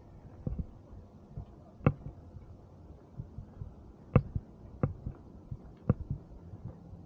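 A scattering of sharp, irregular knocks and thumps, loudest about four seconds in, over a faint low steady hum.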